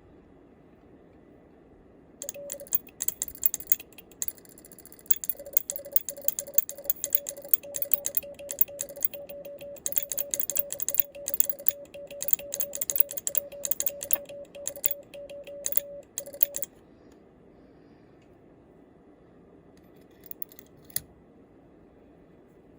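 Home-built stainless steel bug (semi-automatic Morse key) being keyed, its lever and vibrating dot contact clattering in quick metallic clicks while a beep tone keys on and off in dots and dashes, sending Japanese Morse code. The sending starts about two seconds in and stops suddenly about sixteen seconds in, followed by a few light clicks near the end.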